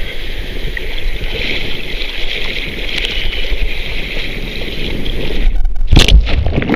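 Sea water sloshing and hissing around a waterproof camera held at the surface in choppy surf. About five and a half seconds in the camera goes under: the sound turns muffled and a loud splash follows near the end.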